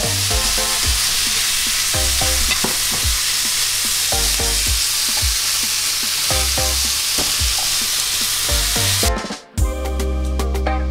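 Sliced bell peppers, onion and tomato frying in plenty of hot oil in a non-stick pan: a steady sizzle as they are turned with tongs, with faint music underneath. About nine seconds in, the sizzle cuts off suddenly and music with a beat takes over.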